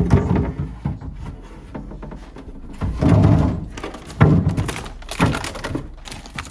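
Irregular thunks and knocks of refrigerator contents being handled: containers, shelves or bins set down and moved around. There are louder clusters about three seconds in and just after four seconds.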